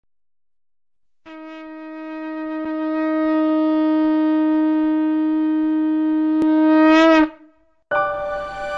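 A conch shell (shankh) blown in one long, steady note that swells in loudness, then bends briefly upward and cuts off. Soon after, background music begins.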